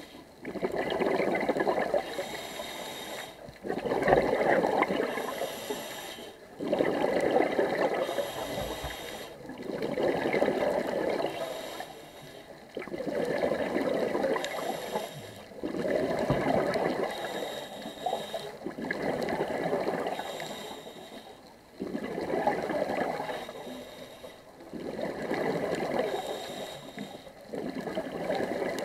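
Scuba diver breathing through a regulator underwater: a rush of exhaled bubbles about every two to three seconds, with a thinner, higher hiss of inhaling in the gaps between.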